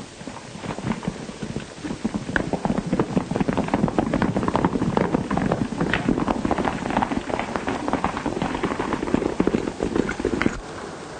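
Hoofbeats of several horses galloping off together: a dense clatter that builds up about a second in and stops abruptly near the end.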